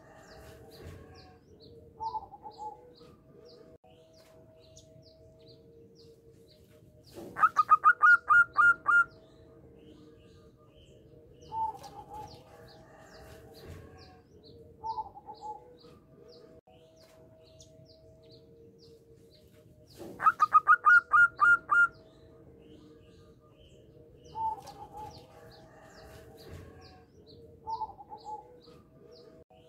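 Zebra dove (perkutut) song: soft short calls and, twice, a loud run of about eight quick staccato notes, the pattern repeating roughly every 13 seconds. Faint high chirps of other small birds and a faint steady hum lie behind it.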